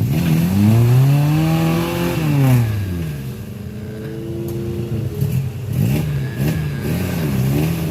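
Suzuki Jimny 4x4 engine revving under off-road load: one long rev up and back down in the first three seconds, then steadier running, then a series of short quick revs near the end.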